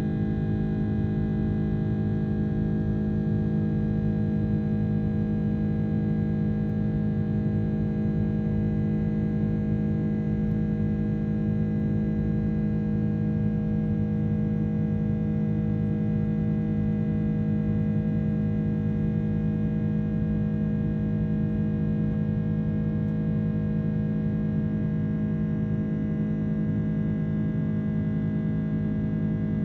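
Steady drone of a jet airliner's engines heard inside the cabin during the climb after takeoff: a low rumble with several humming tones held unchanged throughout.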